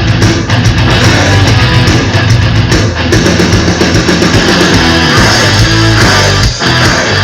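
Loud rock music with electric guitar, played as a hockey team's goal song.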